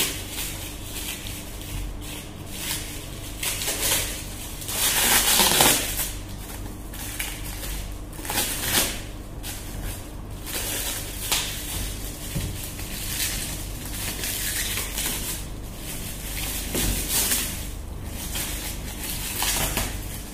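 Clear plastic packing wrap crinkling and rustling as it is peeled and pulled off a box by hand, in irregular bursts, loudest about five seconds in.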